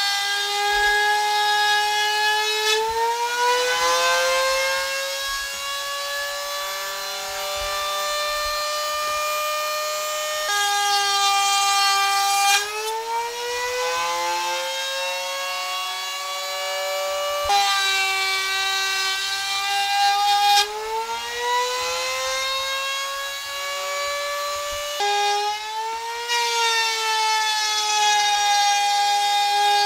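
Electric motor of a bench-mounted power tool whining as strips of frame timber are fed through it. The pitch climbs slowly over several seconds and then drops suddenly back down, several times over.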